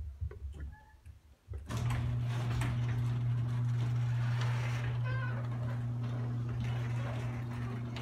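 Craftsman ½-horsepower chain-drive garage door opener starting up about two seconds in and running steadily as it closes the door, a steady motor hum under the noise of the drive. A brief wavering squeak about five seconds in.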